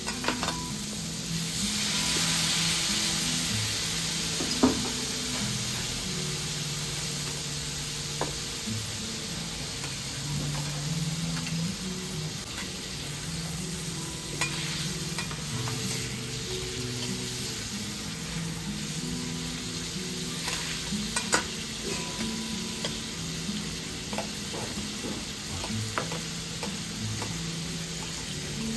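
Shrimp sizzling on a hot teppanyaki steel griddle. A steady frying hiss runs throughout, and the chef's metal spatula scrapes and clinks sharply against the plate every few seconds.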